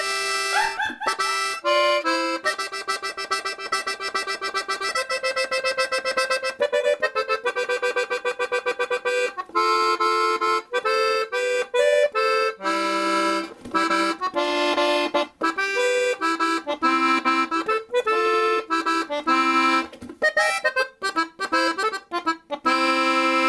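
Accordion music: a lively tune of quick, rapidly repeated notes and chords, ending on a long held chord.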